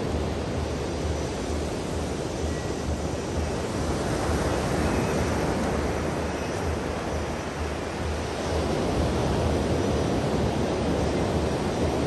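Small surf breaking and washing up a sandy beach, a steady rushing wash that swells a little about four seconds in and again after about eight seconds.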